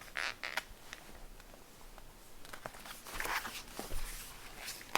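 Faint, scattered rustles and light taps, a few soft handling noises in a quiet small room.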